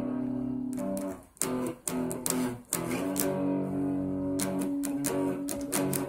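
Guitar music: plucked notes over held tones, with two brief drops in level in the first half.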